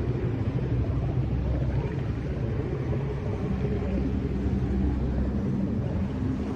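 Low ambient drone: a deep continuous rumble with a few sustained low tones that shift over time. The uploader presents this backing track as the 'sound of space', electromagnetic frequencies converted into audible sound.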